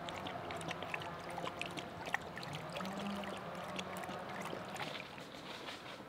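Water trickling and splashing, with many small, irregular drips and plops over a steady wash.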